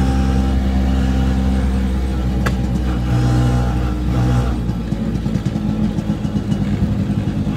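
Auto rickshaw's freshly rebuilt engine running steadily, then turning rougher and more uneven about four and a half seconds in.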